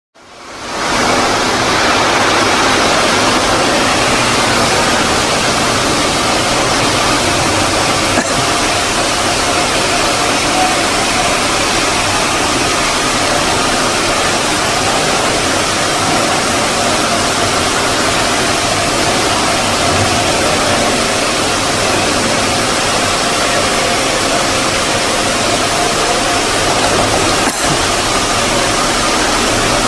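Automatic gantry stone polishing machine running, its two motor-driven abrasive heads spinning and grinding on wet stone slabs. It makes a loud, steady noise with a faint motor hum, fading in over the first second.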